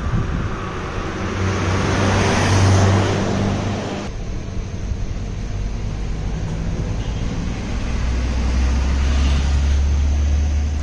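Motor scooter riding along the road, its engine running under wind and road noise. About four seconds in the sound changes abruptly to a quieter, lower engine hum that grows stronger near the end.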